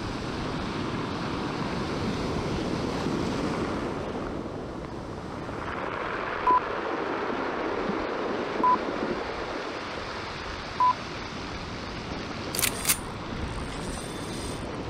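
Ocean surf washing up the beach with wind on the microphone. Near the middle, three short electronic beeps sound about two seconds apart. Near the end come two sharp clicks.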